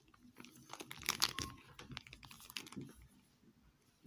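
Light clicking and rustling of fingers handling a Pokémon card pack and its cards, busiest about a second in and fading to near quiet near the end.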